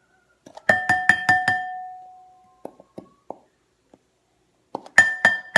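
A glass bowl struck in quick succession: five sharp clinks about a second in and a few more near the end. Each clink rings at the same pitch and fades out.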